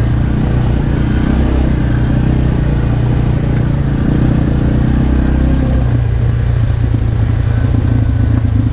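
Arctic Cat Alterra 450 ATV engine running steadily under throttle, heard from on board; the engine note eases off about six seconds in.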